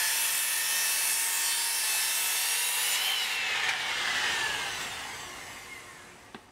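Skilsaw circular saw ripping a bevel along the top edge of a wood fascia board, the blade cutting steadily. About three seconds in the trigger is released and the blade winds down with a falling whine that fades away.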